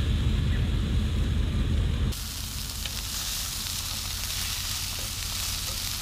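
Burger patties sizzling in a frying pan on a portable gas stove, a steady hiss, with a few light clicks as metal tongs work them. For about the first two seconds a low rumble covers the sizzle, then it drops away.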